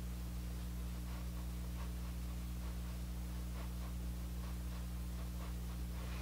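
Soft, repeated brushing of a makeup brush swept over the cheek, blending contour powder, a few strokes a second, faint under a steady low electrical hum.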